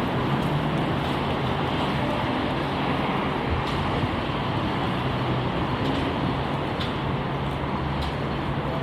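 Steady wet-street noise of rain and road traffic, with a low, even engine hum underneath.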